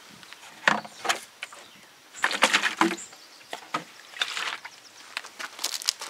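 Irregular footsteps and scuffs, a few loose steps with a louder cluster of crunching about two seconds in.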